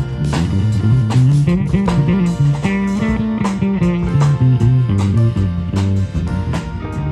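Live band of electric guitar, drum kit, keyboard and acoustic guitar playing an instrumental tune, with regular cymbal hits and a low bass line moving underneath.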